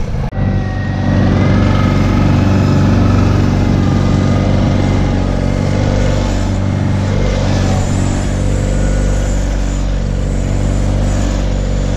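Tractor engine running steadily, after a brief cut-out in the sound just after the start.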